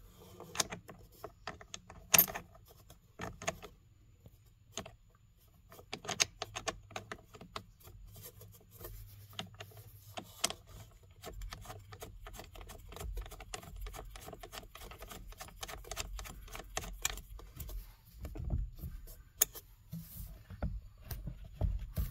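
Steering wheel retaining nut and lock washer being threaded onto the steering shaft by hand: irregular light metallic clicks and clinks, with a few sharper knocks.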